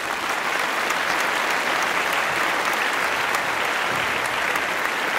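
Applause from a crowd of many people, steady in level, a dense mass of individual claps.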